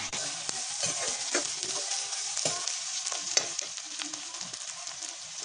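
Chopped onions sizzling as they fry in hot mustard oil in a kadhai, with a steady hiss. A metal spoon scrapes and clicks against the pan now and then as they are stirred.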